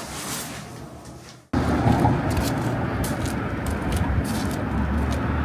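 A quiet stretch fades out. About a second and a half in, an abrupt cut brings in a steady, loud rumbling noise, the kind a moving vehicle makes, with scattered clicks over it.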